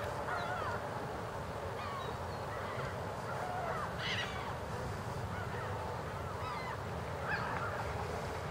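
Canada geese honking in scattered calls over a steady low background rumble.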